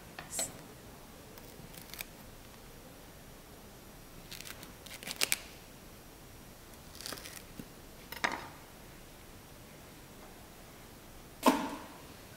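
Okra pods being trimmed on a cutting board: a handful of short, crisp cuts and taps spaced a second or more apart, the loudest one near the end.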